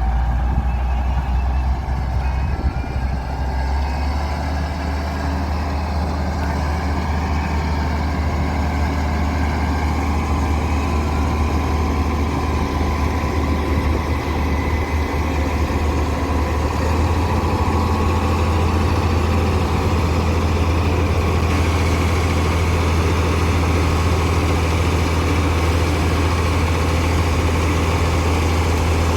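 Heavy diesel engine of road-construction machinery running steadily with a deep hum, its note rising slightly a little past the middle.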